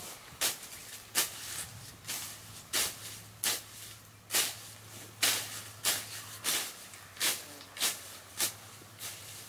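Hand sickle cutting through weed stems: about a dozen short, sharp swishing cuts, roughly one every two-thirds of a second.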